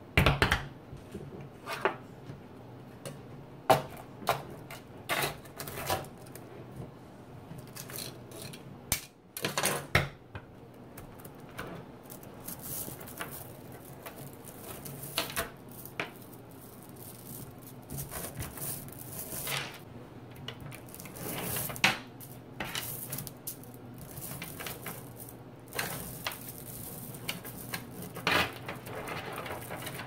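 Small neodymium magnet balls clicking and snapping against each other as strands and slabs of them are handled, played backwards. Scattered sharp clicks at first, turning into a busier rattle from about twelve seconds in.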